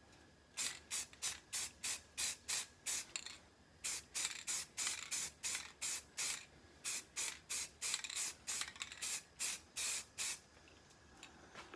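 Rust-Oleum 2X flat grey aerosol spray-paint can spraying in short quick bursts, about three a second, with a brief pause about three seconds in, as the foam RC jet fuselage gets a touch-up coat.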